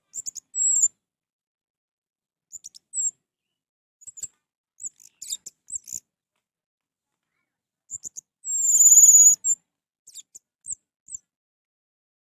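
Orange-headed thrush singing in short, high, scattered notes with pauses between them. The longest and loudest phrase comes about eight and a half seconds in.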